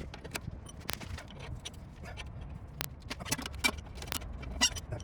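Irregular metallic clicks and clinks of a hand wrench turning a 15 mm nut off the upper stud of a front sway bar end link.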